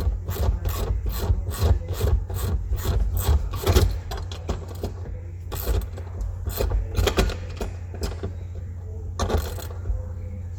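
Rhythmic rasping strokes of a hand tool working metal, about three strokes a second, thinning out to a few scattered strokes after about four seconds.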